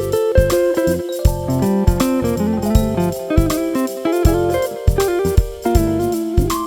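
Background music: guitar-led instrumental with a steady drum beat.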